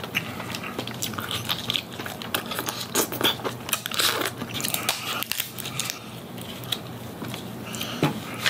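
Close-miked eating of steamed king crab meat: biting and chewing with many irregular crackles and clicks.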